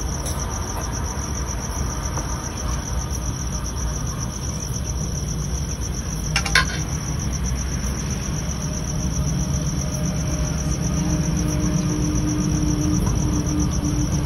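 Crickets chirping in a steady, rapidly pulsing trill over a low rumble. A short metallic clatter of steel cookware being handled comes about six and a half seconds in.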